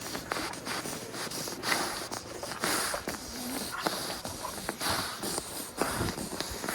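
Sheep being moved into a handling pen: shuffling, hoof steps and irregular knocks against the pen, with a snort.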